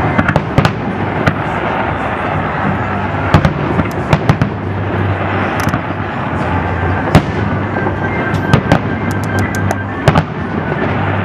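Aerial fireworks shells bursting in an irregular series of sharp bangs and crackles, with a quick run of bangs about nine to ten seconds in.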